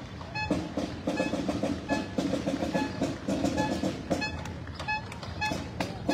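Marching band drum cadence: a fast, regular run of drum strokes, with a short pitched tick repeating a little faster than once a second.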